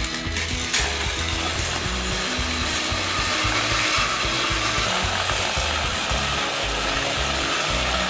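Battery-powered Plarail toy train motors and gears whirring steadily as two toy engines run toward each other and push head to head on plastic track. A knock comes about a second in, and music with a steady bass line plays underneath.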